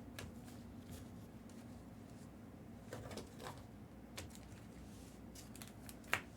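Faint tabletop handling noises: a few soft taps and rustles in the middle, then one sharper click near the end, over a low room hum.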